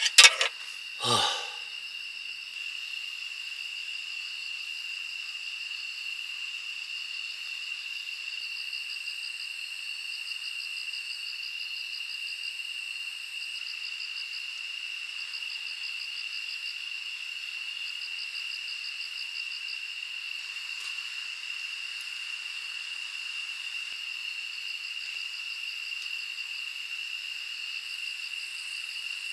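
Insects chirping together in a steady high chorus, with one unbroken buzzing tone and repeated pulsed trills above it. A short falling sound comes right at the start.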